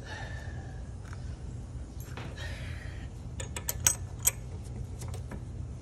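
A socket wrench on the new spark plug of a Briggs & Stratton mower engine makes a series of sharp metallic clicks and clinks, about ten over two seconds past the middle, two of them louder. A steady low hum runs underneath.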